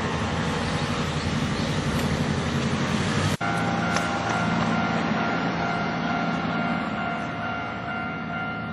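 Electric train passing over a Japanese level crossing, wheels and running gear loud on the rails, with the crossing's electronic warning bell ringing steadily. There is a sudden break about three and a half seconds in, and the train noise then slowly fades while the warning bell carries on.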